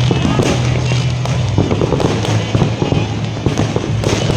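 Fireworks display with a dense, continuous volley of crackling bangs, over a steady low hum.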